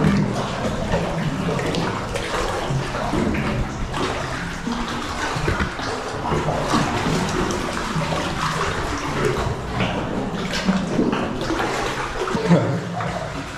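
Water splashing and sloshing close by as people swim through deep, cold cave water, with irregular splashes throughout.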